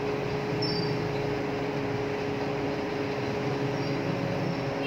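Steady background hum and hiss, unchanging, with a faint constant tone through it.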